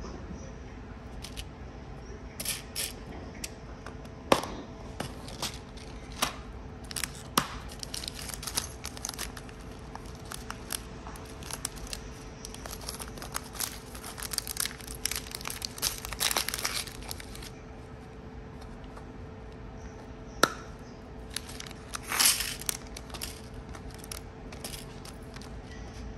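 Plastic packaging being handled: thin plastic packets crinkling in short bursts, with scattered sharp clicks of small clear plastic nail-charm boxes being opened and set down.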